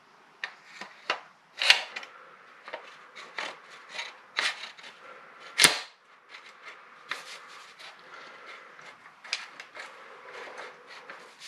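Irregular metallic clicks and knocks of pump-shotgun parts being handled and fitted, with one sharp clack about halfway through as the loudest.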